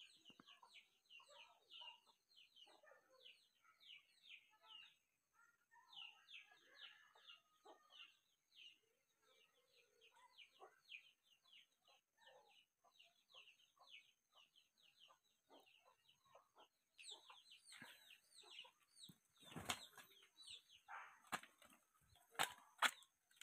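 Near-quiet background of faint high chirps, several a second, with a few sudden wing flaps and feather rustles near the end from a red junglefowl rooster being handled and set down.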